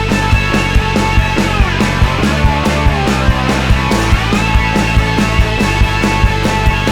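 Rock music with a steady driving drum beat and sustained pitched instrument lines, some bending in pitch.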